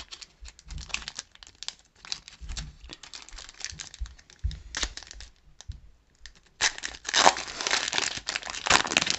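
Shiny foil wrapper of a Pokémon trading card booster pack crinkling in the hands and being torn open. Scattered crackles give way to a denser, louder run of crinkling over the last two and a half seconds.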